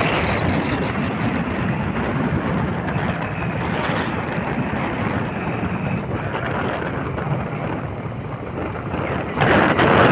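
Motorcycle riding at speed, heard as a steady rush of wind on the microphone over engine and road noise. It gets suddenly louder near the end.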